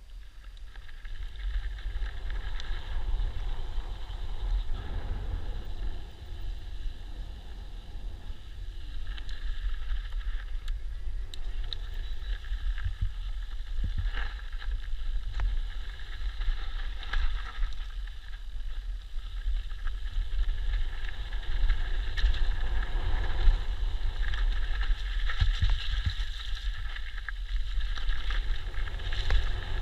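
Mountain bike ridden fast downhill on gravel and dirt trail: wind buffeting the microphone over a steady rumble of tyres, with a few sharp knocks and rattles of the bike over bumps. It grows louder in the first couple of seconds as the bike picks up speed.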